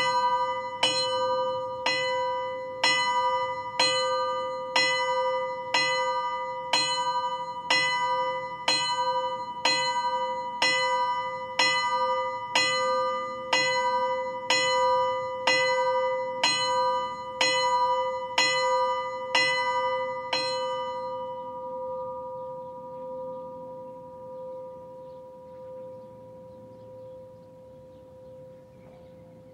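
Single cemetery bell, cast in 2000 by the Ecat foundry of Mondovì and tuned to a slightly sharp B4, tolled while hanging still: about twenty strokes at roughly one a second. After the last stroke, about two-thirds of the way in, the bell rings on and fades, its low hum lingering.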